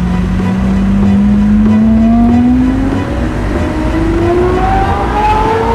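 Lamborghini Aventador SVJ Roadster's naturally aspirated V12, fitted with a Gintani aftermarket exhaust, accelerating under load. The engine note rises steadily, climbing faster in the second half.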